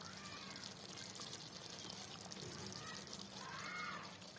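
Chicken curry simmering in an aluminium pot, a steady soft bubbling hiss. A few faint distant voice-like calls come near the end.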